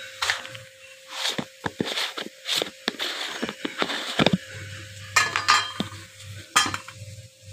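A metal spatula scraping and clinking irregularly against a metal kadhai as frying onions and potatoes are stirred, with a longer run of scraping about three to four seconds in.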